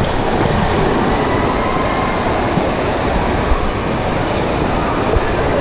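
Loud, steady rush of water around a slide raft as it runs out at the bottom of a tube water slide, with faint voices in the background.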